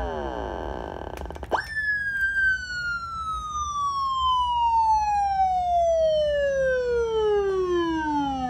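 Police-style '113' siren for a motorcycle: the end of one falling sweep dies away, then about a second and a half in it jumps sharply up in pitch and glides slowly down over about seven seconds in one long wail.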